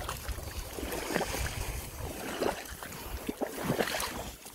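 Footsteps crunching and plunging through deep snow in a few irregular steps, over a low rumble of wind on the microphone.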